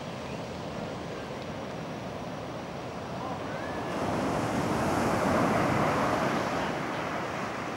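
Ocean surf: a wave breaking on the beach, its rushing noise swelling about four seconds in and easing off near the end.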